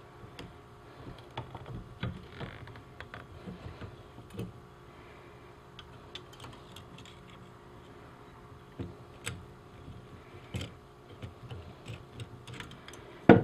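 Irregular small metal clicks and taps as channel lock pliers squeeze a replacement steel trigger onto the frame of a Belisle 280 conibear trap.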